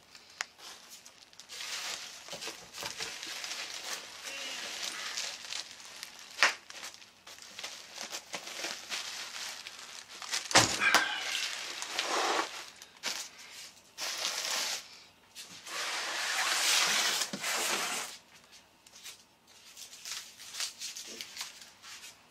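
Plastic bubble wrap crinkling and packing peanuts rustling as a wrapped amplifier is handled and pulled out of a cardboard box. A sharp click comes about six seconds in, and a louder thump about ten seconds in.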